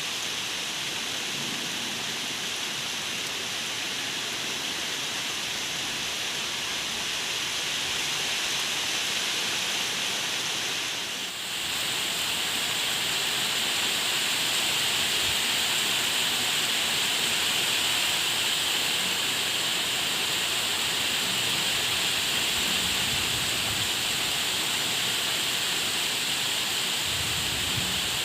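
Steady heavy rainfall, a dense even hiss. About 11 seconds in it dips briefly and returns slightly louder and brighter. A brief low rumble comes near the end.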